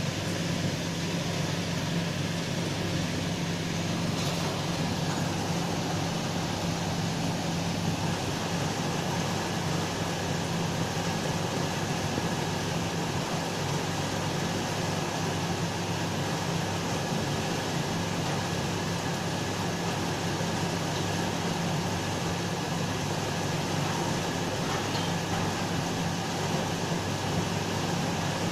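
A steady low mechanical hum under a constant even hiss, like a running room appliance such as a fan.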